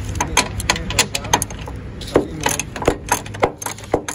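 Ratchet wrench clicking in uneven runs, with sharper metal clinks, while undoing seat mounting bolts.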